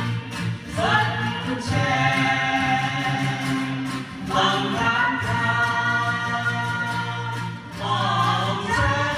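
A song sung over instrumental backing, the voices holding long notes with short breaks between phrases.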